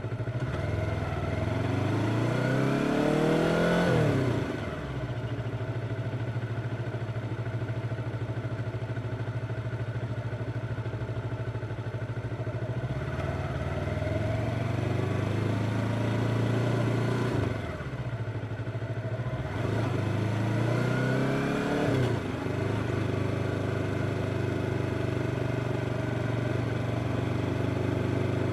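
Yamaha R25 parallel-twin engine under way: three times the revs climb steadily and then drop away sharply, with steady running between the pulls and after the last one, near the end.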